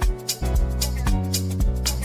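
Background music: an upbeat Afrobeat-style track with a steady drum beat, bass and guitar.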